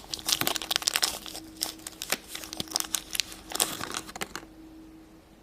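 Small plastic toy packaging crinkling and tearing as it is opened by hand, a rapid run of sharp crackles that stops about four and a half seconds in.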